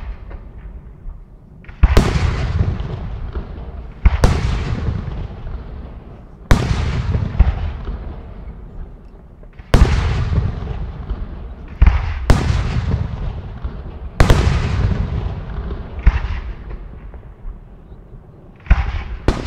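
Aerial firework shells, mostly 75 mm, bursting one after another, roughly every two seconds, about ten sharp bangs in all. Each bang is followed by a rolling echo that slowly dies away.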